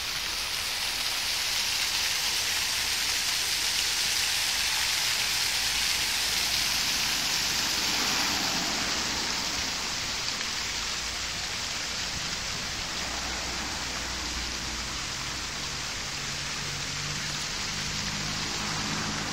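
Running water, a steady rushing hiss, a little louder over the first eight seconds or so.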